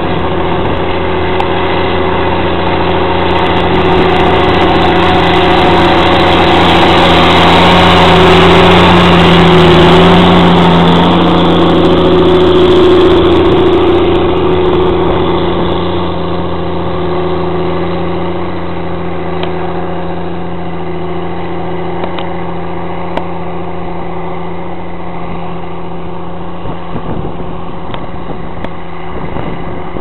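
Caterpillar Challenger MT755B rubber-tracked tractor's diesel engine running steadily under load as it pulls a plough. It grows louder as the tractor comes past, dropping slightly in pitch as it goes by, then fades as it moves away.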